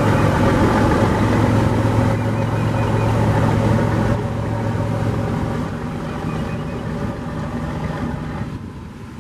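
Single-screw tug's 380 hp Caterpillar diesel running under power, a steady low hum with overtones, while the propeller churns the water. About four seconds in the low hum drops, and the sound fades away through the rest.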